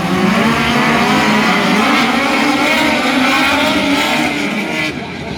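Several dirt-track midget race cars running together, their engines rising and falling in pitch as they rev through the field. About five seconds in the sound drops and turns duller.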